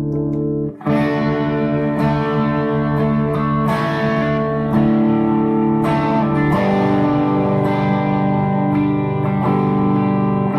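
Les Paul electric guitar played through a Bad Cat Bobcat 5R tube amp: chords strummed and left to ring, with a slightly driven tone and a brief break about a second in.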